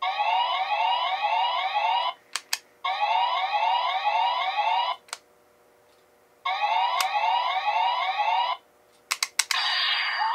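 Premium SP License toy's electronic police siren, played three times through its small speaker: each two-second burst is a run of quick rising whoops, and the button clicks before each one. Near the end, more clicks start a different electronic effect with a rising tone, the transformation-release sound.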